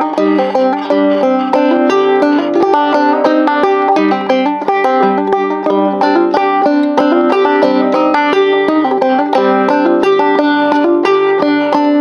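Banjo playing a steady stream of quick plucked notes, a tune in the Hijaz mode.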